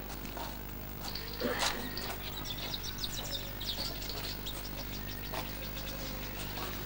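Outdoor ambience: a steady low hum under faint, quick high chirps, most of them in the first few seconds.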